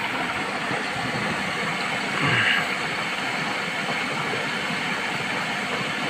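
Steady rush of tap water flowing through the detergent drawer into an Indesit washing machine's drum during its second fill.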